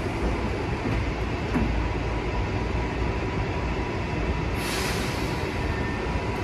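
Metrô-DF Série 1000 electric multiple unit built by MAFERSA, standing at a platform with a steady hum, low rumble and a thin steady whine from its onboard equipment while its doors slide shut. There is a short knock about a second and a half in, and a brief hiss of air about four and a half seconds in.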